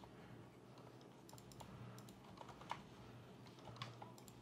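Faint, scattered key presses on a GamaKay LK67 mechanical keyboard with Gateron Silent Black switches and PBT keycaps, tapped in small irregular clusters during gameplay, with one sharper click a little past halfway.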